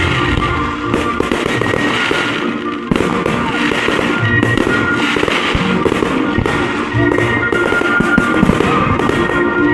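Aerial firework shells bursting and crackling in quick succession over classical music playing for a musical fireworks show.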